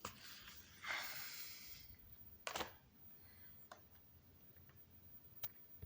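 Quiet room with faint handling noises: a soft rustle about a second in, a short sharper rustle a little later, and a few light clicks.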